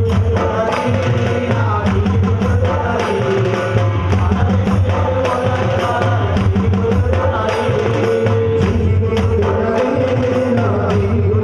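Ayyappa devotional bhajan music: hand drums keep a steady rhythm under a melody line.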